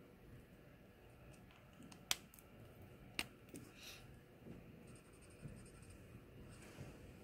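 Two sharp clicks about a second apart as a marker is handled, then the faint scratch of a marker's chisel tip stroking across sketchbook paper.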